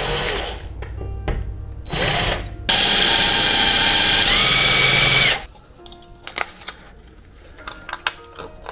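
Cordless drill running into the wall in two short bursts, then one longer run of about two and a half seconds whose motor whine rises in pitch partway through. Scattered light clicks and knocks follow as the plastic thermostat backplate is handled.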